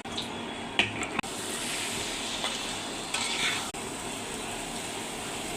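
Food frying and sizzling in a pan while it is stirred, with a steady hiss and a couple of sharp clicks of the utensil against the pan about a second in.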